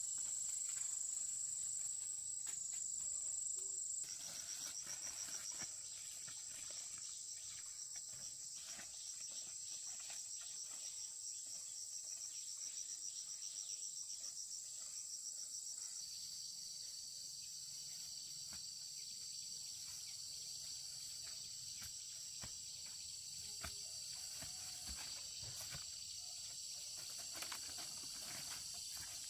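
Insects singing a steady, high-pitched chirring chorus, with a faint scatter of small ticks beneath. The pitch and pattern of the chorus shift about four seconds in and again about halfway through.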